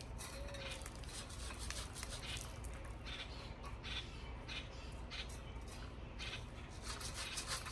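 Faint bird calls and chirps against scattered light clicks and rustling, as a bird feeder is handled and emptied of leftover seed.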